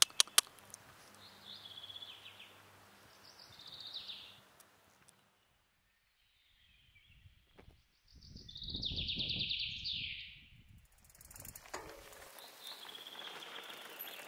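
Wild birds calling: short chirpy phrases that fall in pitch, a couple early on, a louder, longer one about nine seconds in, and fainter ones near the end, over quiet outdoor ambience.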